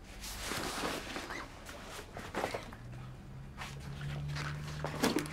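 Footsteps and the rustle of clothing and a rucksack as a boy moves about a shop, with a few light knocks. A low steady hum comes in underneath about halfway through.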